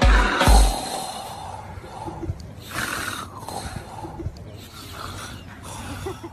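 A man's recorded snores and snorts edited into a remix: two deep bass thumps in the first half-second, then the snoring sounds go on without the beat and cut off suddenly at the end.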